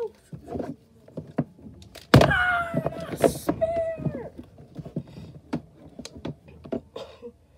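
Sharp clicks and knocks of plastic wrestling action figures being handled and knocked together, with a boy's drawn-out vocal noises, the loudest starting about two seconds in and falling in pitch, and a shorter one near four seconds.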